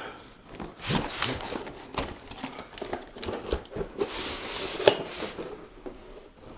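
Cardboard packaging rustling and scraping as a steel driveshaft is handled inside its long box, with scattered knocks and one sharp knock about five seconds in.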